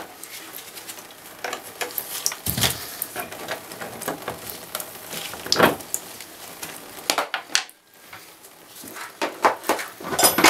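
Small metal faucet parts clinking and clattering as they are handled, with louder knocks about two and a half and six seconds in, over a light trickle of water from the bathtub spout.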